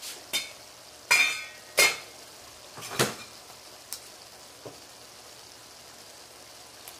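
Metal clanks and knocks of a fork and pot at a pot of boiling potatoes on the stove: about six sharp strikes over the first five seconds, the loudest one ringing about a second in. A faint steady hiss from the stove lies underneath.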